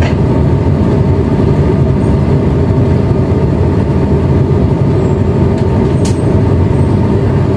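Tugboat's diesel engine running steadily, a loud, even low rumble heard from the deck right by its exhaust stacks.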